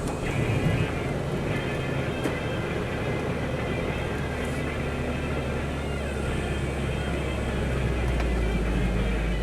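Steady low engine and road drone inside a moving car, growing a little louder about eight seconds in, with the car radio playing faintly underneath.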